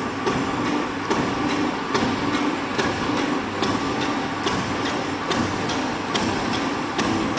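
XQ1000 CNC rubber strip cutting machine running: a steady motor hum with an evenly repeating sharp clack from the cutting blade's stroke, a little under once a second.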